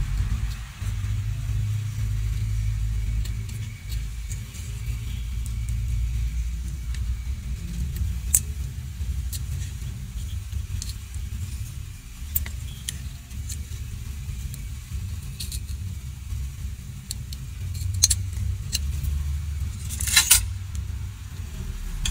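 A steady low background rumble, with a few small clicks and a brief rustle near the end as an electronic component is pressed into a power-supply circuit board and the board is handled.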